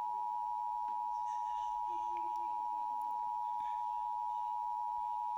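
Emergency Alert System attention tone: a single steady electronic tone just under 1 kHz, held without change and cutting off sharply at the end. It signals that an emergency alert, here a tornado warning, is about to be read.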